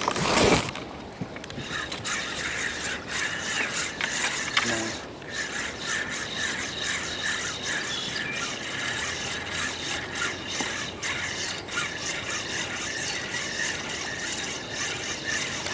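Fishing reel being cranked steadily to retrieve line: a continuous rapid run of gear clicks with a faint whine. A brief loud rush of noise comes in the first half second.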